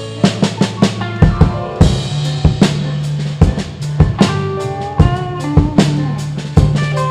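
Blues band playing an instrumental passage with no singing: a drum kit keeps a steady beat of kick and snare hits under sustained bass notes, while a lead instrument plays a melodic line of changing notes.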